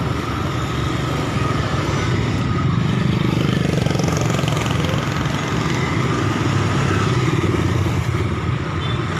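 Excavator's diesel engine running steadily, working harder and louder for several seconds in the middle.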